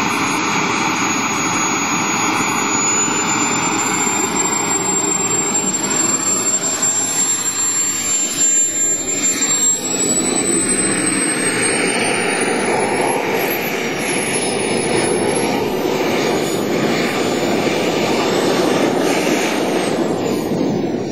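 Radio-controlled model jet's engine running, a steady rushing noise under a high, thin whine that climbs in pitch about halfway through, dips briefly, then falls away near the end.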